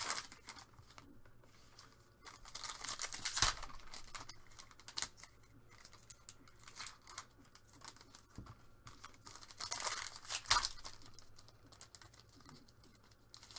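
Plastic wrapping on trading card packs or boxes being torn open and crinkled, in irregular rustling bursts, louder about two to three seconds in and again about ten seconds in.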